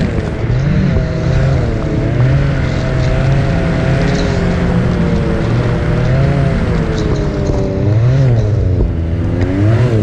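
Ski-Doo Expedition SE 900 Turbo snowmobile's turbocharged three-cylinder engine running, its pitch rising and falling as the throttle is worked, with a quick rise and fall near the end.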